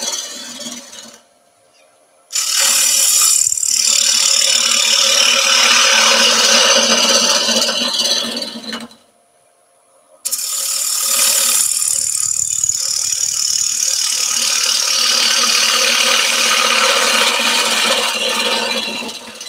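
Turning gouge cutting into the face of a sycamore platter spinning on a wood lathe, hollowing out the centre, with a steady hum from the lathe underneath. The cuts come in three passes, broken by two short pauses, and fade off near the end.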